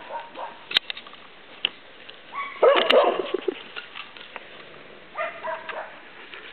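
Dog whining and yipping in a few short bursts close to the microphone, with a couple of sharp knocks of handling noise.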